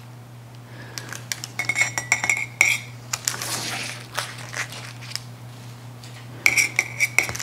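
Metal kitchen utensils clinking and scraping against a ceramic plate and a cutting board as pieces of food are lifted onto the plate. There are light taps throughout, and two ringing scrapes: one about two seconds in and one near the end.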